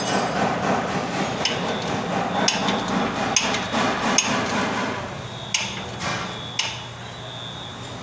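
Hammer blows during suspension repair: about eight sharp strikes at irregular intervals, the last three after a short pause.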